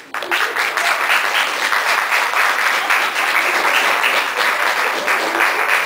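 Audience applauding: many people clapping at once, starting suddenly and holding steady.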